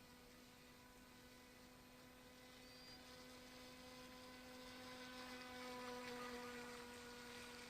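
Faint, steady whine of the RC speedboat's electric motor running, swelling slightly about two-thirds of the way through.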